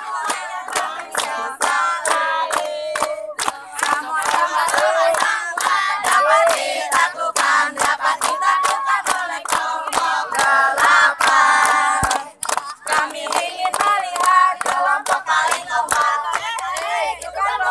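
A group of young voices chanting together to steady hand-clapping, about three claps a second, with a short break about twelve seconds in.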